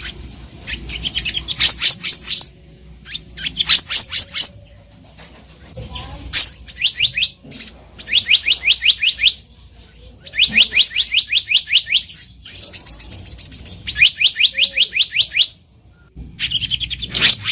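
Black-naped monarch (kehicap ranting) calling: bursts of rapid high, sharp notes, about eight a second, each run lasting one to two seconds with short pauses between.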